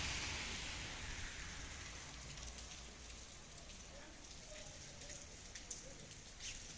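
Heavy rain falling, its hiss easing over the first few seconds, then single drops striking close by at scattered moments.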